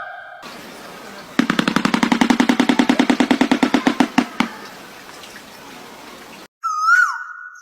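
A rapid rattle of evenly spaced taps, about ten a second for some three seconds, slowing at the end. Near the end comes a short whistled bird call that rises and then drops.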